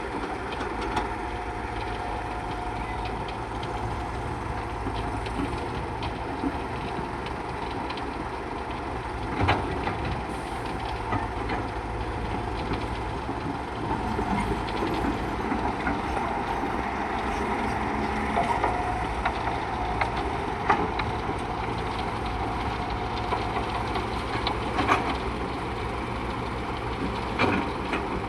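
Steady mechanical rumble of running machinery, with a sharp knock or clank every few seconds.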